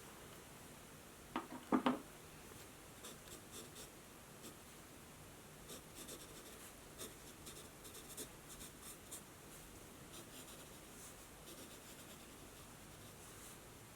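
Two soft knocks about a second and a half in, then a pen scratching across notebook paper in many short strokes.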